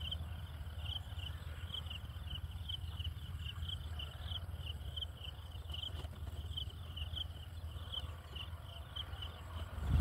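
Short, high chirps from an unseen small animal repeat steadily, about three a second, over a low rumble.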